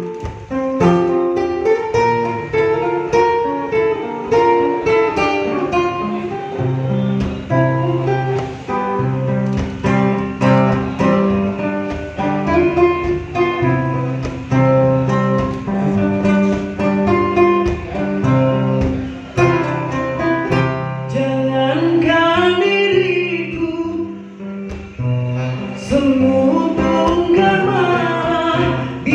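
Acoustic guitar playing an instrumental break, a plucked melody over bass notes. A man's voice comes in singing over the guitar in the last few seconds.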